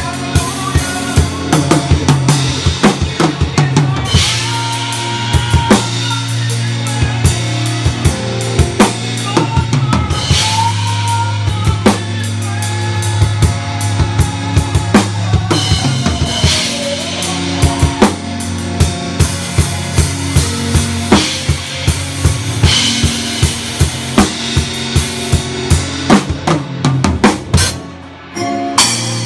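Drum kit played with a gospel band: rapid snare and bass-drum strokes with a cymbal crash every six seconds or so, over sustained bass notes and a melody line. The playing thins out briefly near the end.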